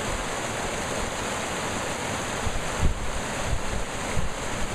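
Water rushing and splashing over rocks in a shallow rapid, a steady hiss, with a few low thumps of wind on the microphone around the middle.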